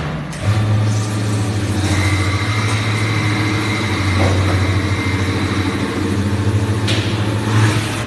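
A semi-automatic 5-gallon water barrel brushing machine runs its wash cycle, its electric motor spinning the rotary brushes around the barrel. It starts about half a second in as a steady, loud hum with a faint high whine over it, and stops near the end.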